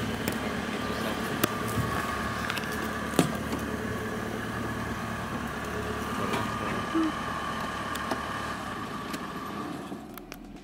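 Safari vehicle's engine running steadily, with a few light knocks and clicks, fading in the last second.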